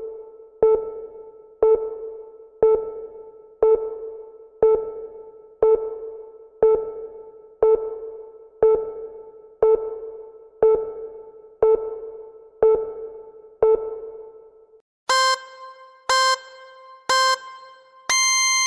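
Electronic workout interval timer: a low beep with a short ringing tail once a second, then three short higher beeps and a long held beep near the end, the countdown signalling the end of the exercise interval.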